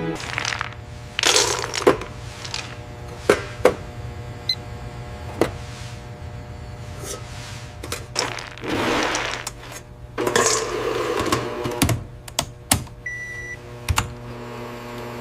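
Factory machinery running with a steady hum, irregular sharp clanks and clicks, and a few short hissing bursts.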